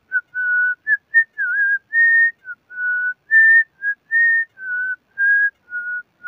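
A man whistling a Bhojpuri song tune through pursed lips, close to the microphone: a string of clear single notes, some short and some held for about half a second, moving up and down within a narrow high range, with one note bending down and back up about a second and a half in.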